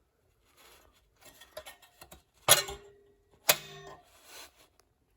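Steel HVAC grill being handled against its magnetic mounting platform: soft scraping, then two sharp metallic clacks about a second apart, each with a short ring.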